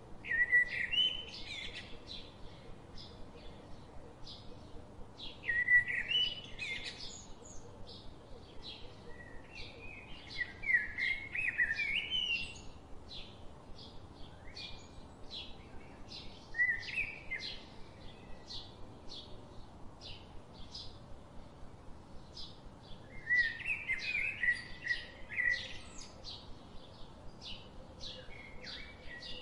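Birds chirping and singing: short warbling phrases about every five seconds, with a steady run of short high chirps, about two a second, between them.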